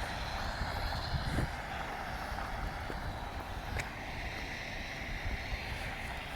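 Steady outdoor city street noise with wind buffeting the microphone in a snowstorm.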